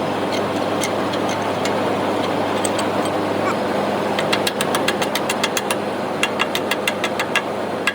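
Excavator's diesel engine running steadily. From about four seconds in, a fast run of sharp taps, about five a second, over the engine.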